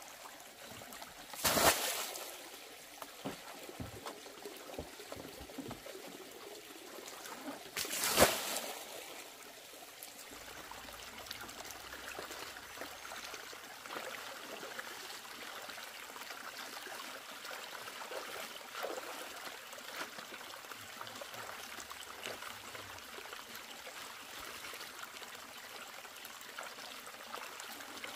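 Water trickling and running steadily, broken by two loud sudden noises, one about a second and a half in and one about eight seconds in.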